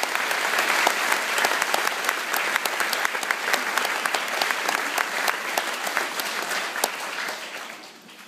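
Large audience applauding, dense clapping that dies away near the end.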